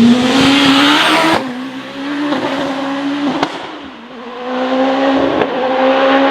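Hillclimb racing car's engine at full throttle, its note climbing steeply and dropping sharply at upshifts about one and a half and three seconds in. It dips briefly, then climbs again as the car accelerates on.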